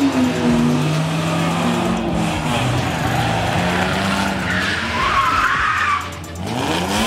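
Car engines held high in the revs as cars slide sideways past, with tyres squealing. The squeal is loudest for a second or two past the middle, and an engine revs up near the end.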